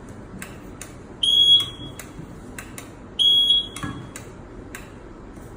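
Tower signal light's built-in buzzer giving two short, high-pitched beeps about two seconds apart, with scattered light clicks around them.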